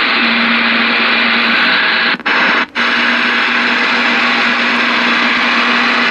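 Ranger RCI-2995DX radio's speaker giving a loud, steady rush of receiver static with a faint low hum. The static cuts out twice, very briefly, a little over two seconds in.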